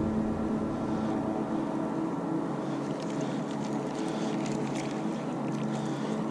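A boat motor running steadily, a constant hum made of several held tones.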